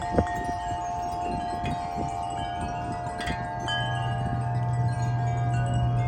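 Metal wind chimes ringing in the wind: two strikes right at the start, then long tones that ring on, with a higher note struck a little past halfway. A low steady hum comes in about halfway through.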